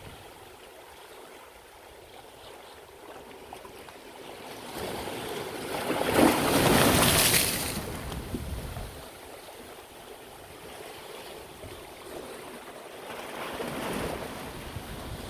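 Sea waves washing onto the shore: one wave surges and breaks loudly about six seconds in, then recedes, and a smaller wave comes in near the end.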